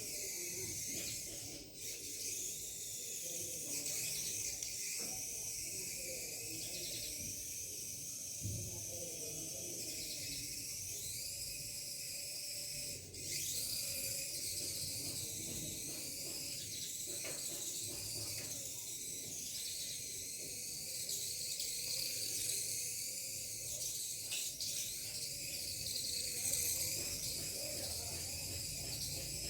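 High-pitched whine of a micro RC car's tiny electric motor and gears, rising and falling in pitch as the throttle changes, with a few sharp clicks.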